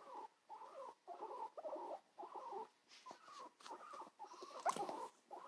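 Guinea pig making a string of short, soft calls, about two a second, with one louder, sharper call near the end.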